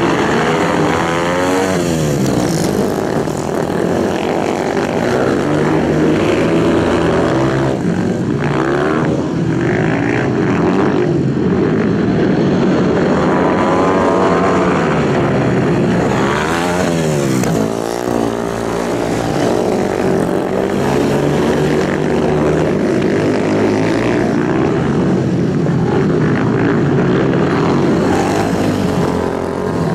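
Several dirt-track racing motorcycles running hard together, the engine pitch rising and falling over and over as the bikes accelerate through the turns and pass by.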